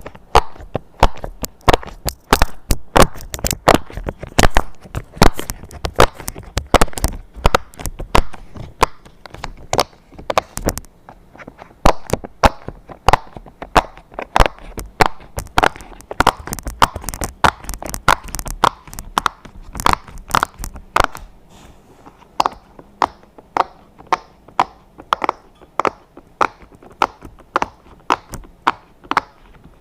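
Silicone pop-it fidget toy being popped, its bubbles pushed through one after another in a long run of sharp pops. The pops come thick and fast at first, then settle to an even two or three a second.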